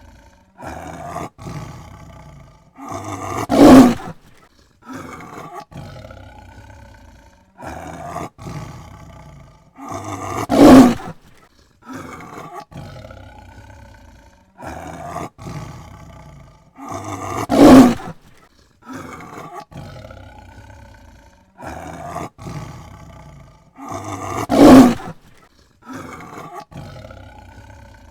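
Tiger roaring: a run of shorter, quieter calls builds to one loud roar, and the same sequence repeats about every seven seconds, four loud roars in all.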